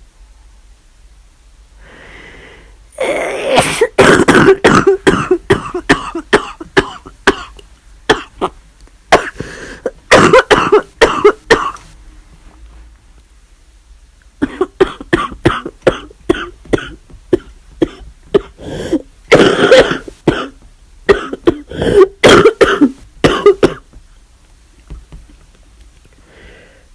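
A person with the flu in two long fits of rapid, explosive bursts from nose and throat, several a second. The first fit starts about three seconds in and runs for about nine seconds; the second follows a short pause and lasts about ten.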